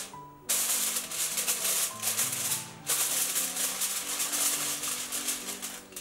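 Aluminium foil crinkling and crackling as it is laid over a bowl and pressed and folded down around the rim, in two long stretches with a short break between them. Background music plays underneath.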